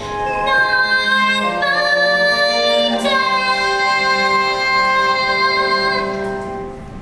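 A singer holding long, sustained notes over a musical backing. The note changes about one and a half seconds in and again at three seconds, and the music fades out near the end.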